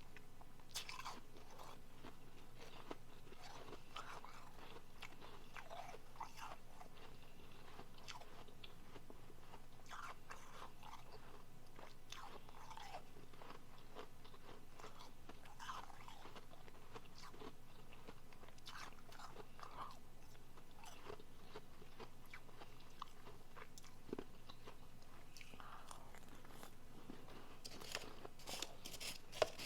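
A person chewing soft refrozen powdery blender ice, with quiet crunches every second or two and a louder run of sharp crunching near the end.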